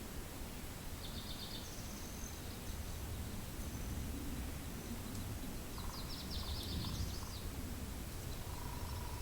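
Steady low wind rumble with songbirds calling. A short, fast high trill comes about a second in and a longer one around six seconds, and a lower trilled call follows near the end.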